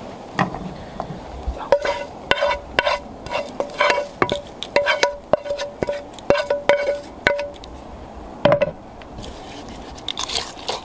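A ladle stirring thick mashed tapioca in a metal pot, clinking against the pot's side in a quick string of ringing knocks, with a few more clinks near the end.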